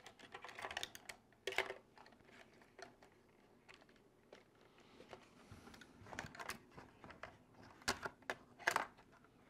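Small clicks and light rattling of an RC crawler's body and chassis being handled while light-kit wires are tucked under it, with a few sharper clicks, the loudest near the end.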